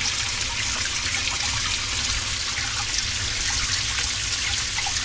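Water running steadily into the chamber of a DIY polypropylene sieve pre-filter as it fills from the bottom, an even splashing hiss with a low rumble underneath.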